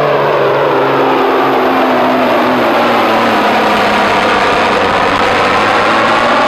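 Semi truck's diesel engine running at full power as it drags a weight-transfer sled in a truck pull. The note is loud and continuous, sagging a little in pitch over the first few seconds as the load builds, then holding steady.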